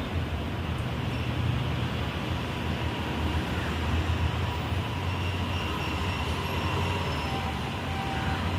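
Steady low rumble with an even hiss over it, like outdoor urban background noise, with a few faint thin tones above it.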